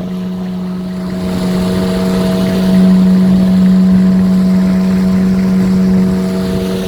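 Engine of a motorized canoe running steadily, a strong, even-pitched drone that grows louder about halfway through and eases slightly near the end.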